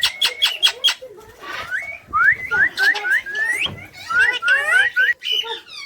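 Parrot calling: a quick run of about six sharp clicks in the first second, then a series of short, rising whistled chirps.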